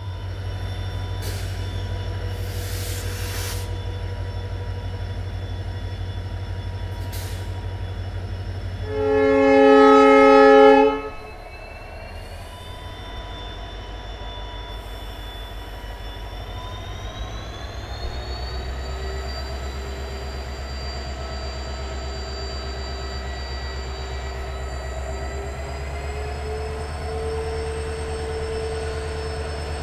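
EMD WDP4 diesel locomotive's engine humming steadily, with the loco's air horn sounded once for about two seconds near the middle. Afterwards a rising whine and a deeper, louder rumble come in as the engine is throttled up.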